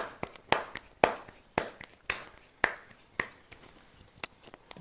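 Bajra (pearl millet) rotla dough being patted flat between the palms by hand: a steady run of soft slaps, about two a second.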